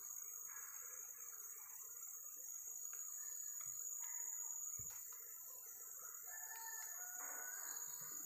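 Wild red junglefowl crowing faintly in the distance, over a steady high drone of forest insects.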